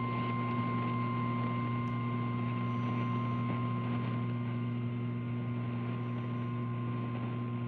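NOAA Weather Radio warning alarm tone: a single steady high tone of about 1050 Hz, which announces that a warning message follows. Under it runs a steady low electrical hum.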